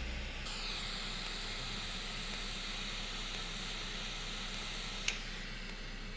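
Butane torch lighter's flame hissing steadily while it lights a cigar, with a sharp click about five seconds in.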